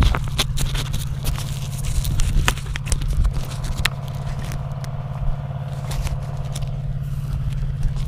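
Handling noise on a crashed FPV quadcopter's onboard camera as the drone is picked up and moved: scrapes, clicks and knocks, most frequent in the first few seconds, over a steady low hum.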